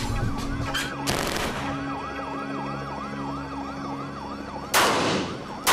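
Police siren yelping rapidly, about four rises and falls a second, with gunshots: one about a second in and two louder ones near the end.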